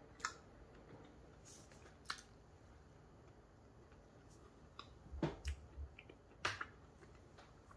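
Faint mouth clicks and lip smacks of someone chewing a muffin, with a handful of sharp clicks scattered over several seconds.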